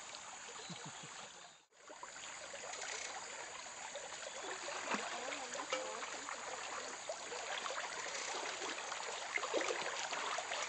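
Shallow forest stream running, with splashing and sloshing as a person wades through the water. The sound breaks off briefly about two seconds in.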